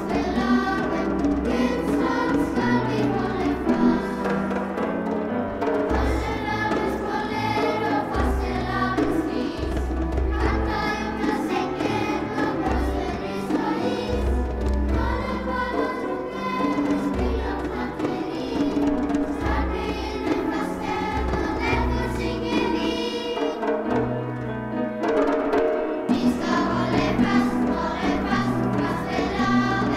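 Children's choir singing a lively song together, with instrumental accompaniment carrying a bass line and a steady beat, in a church.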